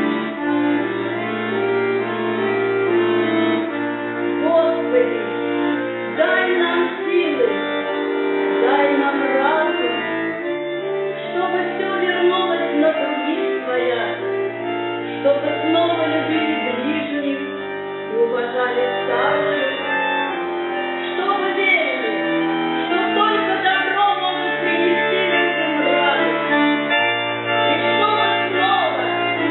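Russian folk choir singing in parts over steady held instrumental chords, with a bass note that changes every few seconds.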